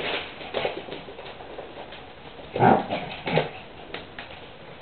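Small dog barking twice in quick succession about two and a half seconds in, a territorial warning at another dog, with a fainter call near the start.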